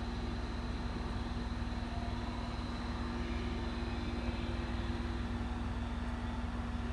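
Standing Aoimori Railway 703 series electric train humming steadily from its onboard auxiliary equipment, a low electrical tone with a faint high-pitched whine above it.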